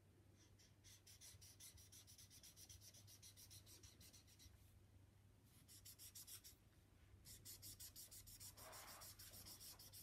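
Felt-tip marker scrubbing on paper: quick back-and-forth colouring strokes, several a second, with two short pauses. Faint.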